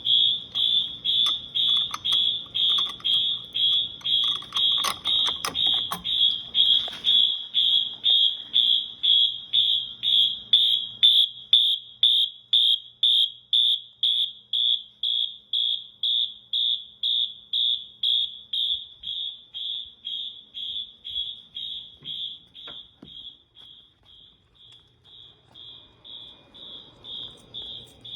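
Fire alarm horns, Wheelock MT-series multitone horn-strobes, sounding a high-pitched beep at about two a second after a manual pull station has been pulled. The beeping grows fainter about two-thirds of the way through, then louder again near the end.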